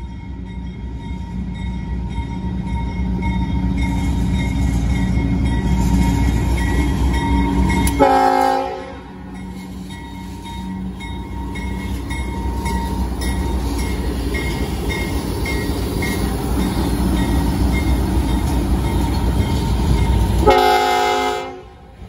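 Air horn of a CSX GE diesel locomotive blowing two long blasts for a grade crossing, over the rumble of the locomotive passing close by. The first blast grows louder and cuts off sharply about eight seconds in; the second, after a short break, runs until it cuts off sharply near the end.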